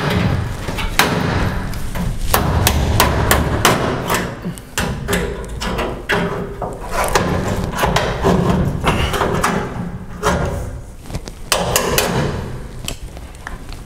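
Copper pipe being cut with hand-squeezed cutters: a run of irregular sharp metallic clicks and crunches with low knocks.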